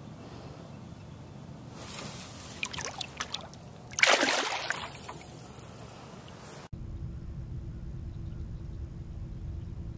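Water trickling and sloshing with small splashes as a bass is held at the surface, then one loud splash about four seconds in as the released bass kicks away. After a sudden cut, a steady low hum carries on.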